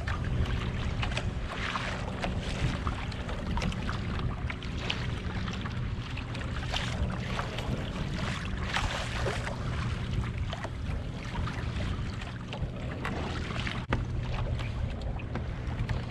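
Wind buffeting the microphone and choppy ocean water splashing and lapping against a plastic kayak's hull, with a steady low rumble and irregular swishes.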